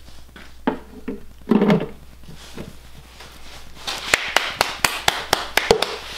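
Quick run of about nine sharp metal taps and clicks in under two seconds, as a steel oil pan is set and seated on an engine block.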